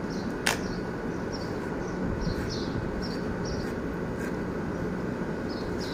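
Corded electric hair clippers buzzing steadily as they cut hair, with one sharp click about half a second in. Small birds chirp in short repeated bursts throughout.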